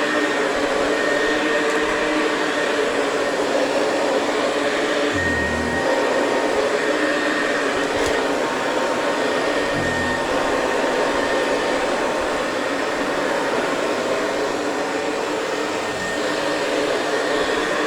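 Hoover Convertible 704 upright vacuum cleaner running steadily on carpet: a constant motor rush with a steady whine over it, and a couple of brief low thumps about five and ten seconds in.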